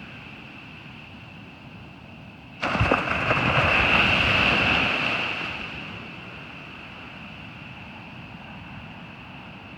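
Surf on a beach: a steady wash of the sea, then a wave breaks suddenly about two and a half seconds in, a loud rush that lasts about three seconds before fading back.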